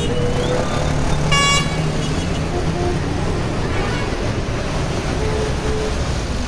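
Steady outdoor street ambience with a low traffic rumble, and a short high-pitched toot about a second and a half in.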